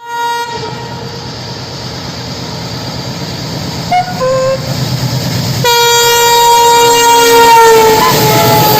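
WDM-class diesel locomotive running at speed, its rumble growing steadily louder. It sounds its horn: a short blast at the very start, a couple of brief toots about four seconds in, then a long, loud blast from about six seconds in that dips in pitch near its end.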